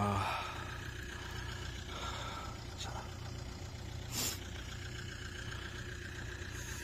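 A vehicle engine idling steadily, with a short noisy burst about four seconds in.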